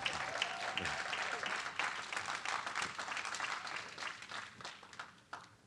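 Audience applauding: many hands clapping at once, thinning out and dying away near the end.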